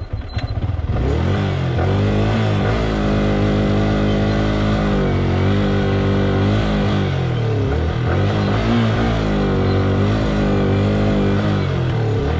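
Yamaha R15 V3's 155 cc single-cylinder engine goes from lumpy pulses to a steady run under load about a second in as the motorcycle is ridden. Its pitch dips and rises several times with the throttle.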